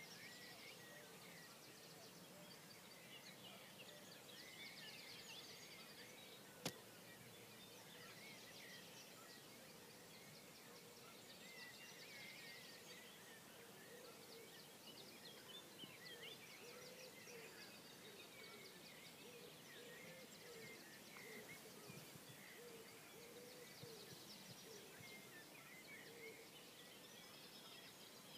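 Faint dawn chorus of songbirds: many overlapping chirps, trills and warbles throughout. A single sharp click about seven seconds in is the loudest sound.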